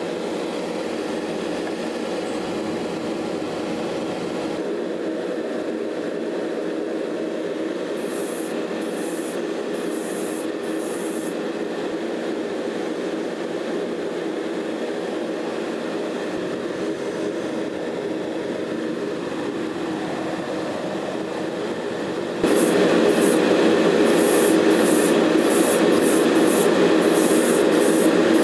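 Steady drone of a hobby spray booth's extraction fan. About 22 seconds in it gets markedly louder, and short bursts of air hiss come and go, some early on and many near the end.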